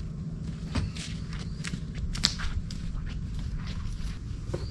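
Footsteps on dirt and dry leaves, an uneven run of short crunches and scuffs over a low steady rumble.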